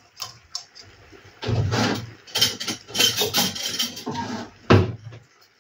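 Irregular scraping and clattering on a metal wok, the kind made by live blue crabs shifting their legs and shells against the pan, with one sharper clack near the end.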